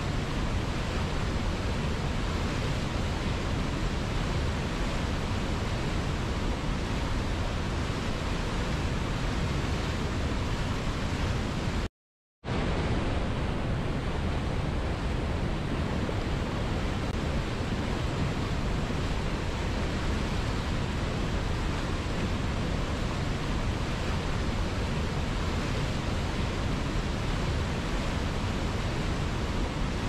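Whitewater river rushing over boulders below a waterfall: a steady, dense rush of water. About twelve seconds in, the sound cuts out completely for about half a second, then comes back.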